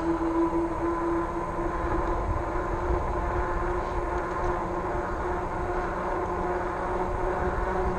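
RadRover fat-tire e-bike under way on pavement: the electric hub motor's steady whine over a low rumble of wind and fat tires rolling.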